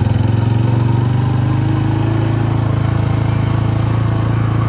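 Motorcycle engine running steadily as the bike rides along, heard from the rider's seat.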